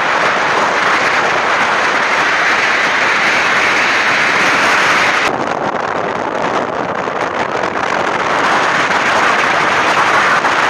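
Loud, steady rushing of wind across the microphone on a moving vehicle, with the vehicle's road noise underneath. About five seconds in, the highest part of the hiss drops away abruptly, and the rushing goes on a little lower.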